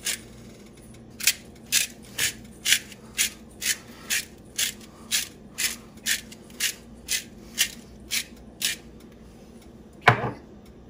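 Hand-twisted pepper grinder cracking peppercorns, about sixteen short ratcheting grinds at roughly two a second, followed by a single knock near the end.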